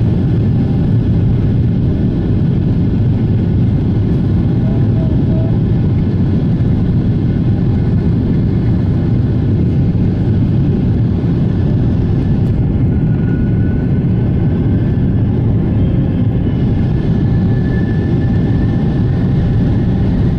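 Steady low rumble inside the cabin of a Boeing 777-300ER rolling on the ground, with its GE90 engines running. A faint thin whine joins in about halfway through.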